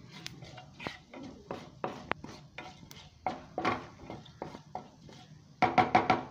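Fennel seeds spluttering in hot oil in a frying pan, with scattered, irregular crackles and pops. Near the end there is a quick run of louder metallic clatters against the pan.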